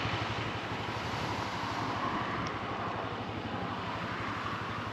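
Motorbike running underway, with a steady rush of wind over the microphone.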